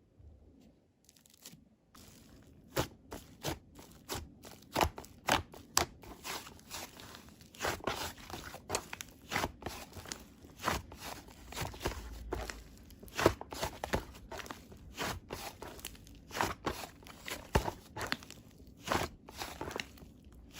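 Whipped-cream-textured slime being squeezed and poked by hand, making irregular sticky pops and crackles, one to three a second, starting about two seconds in.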